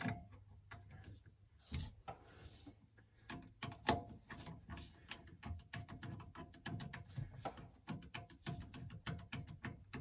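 Screwdriver and hands hand-tightening the bolts of an electric landing-gear motor unit onto its metal gearbox: a string of small clicks and light metal knocks, with a sharper knock about four seconds in and another near two seconds.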